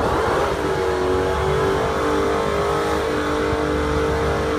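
A supercharged V8, most likely the Dodge Challenger Hellcat's 6.2 L HEMI, held at high, steady revs. After a short settling about half a second in, the engine note stays at one pitch.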